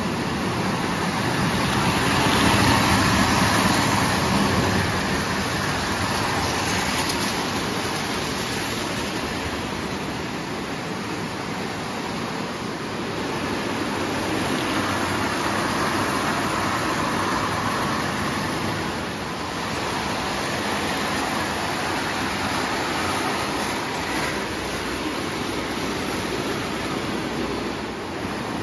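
Marx tinplate toy trains running on tubular O-gauge track: a steady rumble of metal wheels and motors on the tin rails. It grows louder about two seconds in and again midway.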